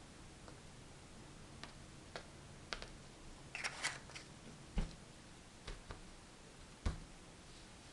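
Small objects being handled on a workbench: scattered light clicks and taps, a short rustle about halfway through, and two louder dull knocks, about five and seven seconds in.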